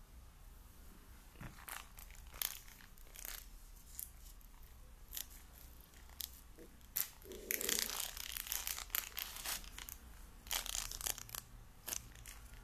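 A small clear plastic bag being torn open and crinkled by hand: a string of sharp crackles and rustles, densest about seven to eight seconds in and again around eleven seconds.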